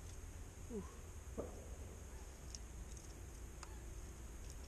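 Faint, scattered clicks and ticks over a low steady rumble, with two short falling sounds about a second in.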